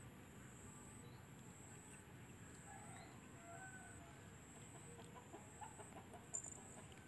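Faint outdoor ambience: a steady high insect buzz, with a few soft, distant hen clucks in the middle.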